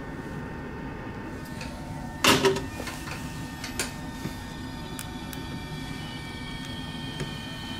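Steady hum of workbench equipment, with a short loud clatter of tools or parts being handled about two seconds in and a few light clicks afterwards.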